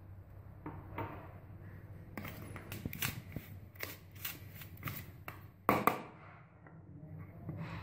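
Metal spoon stirring dry whole wheat flour in a plastic bowl: a run of quick scrapes and taps against the bowl, with one louder knock about six seconds in.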